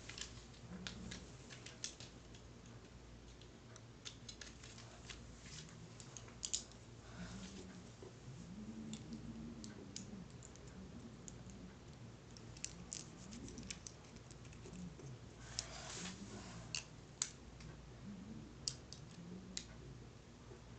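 Faint, scattered clicks and ticks of small plastic and metal Beyblade spinning-top parts being handled and fitted together.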